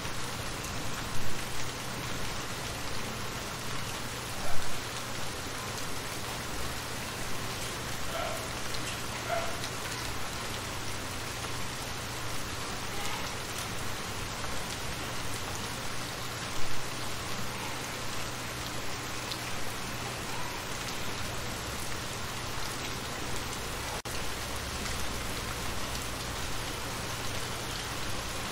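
Steady rain falling into shallow water over a pebbly bed: a dense patter of drops on the water surface, with a few louder splashes, the loudest about four and a half seconds in.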